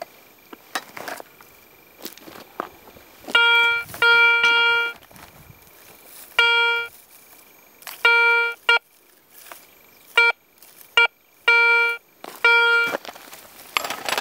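Metal detector sounding a string of short beeps all on one pitch, about nine over ten seconds, as the search coil sweeps over buried metal targets. A few brief scrapes and knocks before the beeps start.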